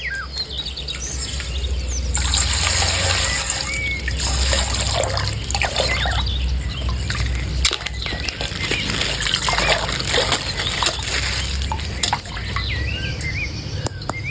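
Coloured water pouring and trickling out of a punctured plastic ice-pack bag, with scattered clicks of the bag being handled.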